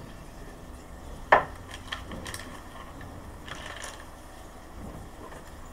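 Tools and small parts being handled on a wooden table: one sharp knock about a second in, then a few lighter clicks and a brief rustle.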